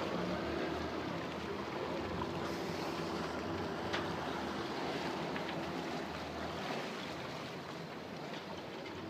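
Wind and water rushing past a sailing yacht under way, with a faint steady low hum that fades out about seven seconds in.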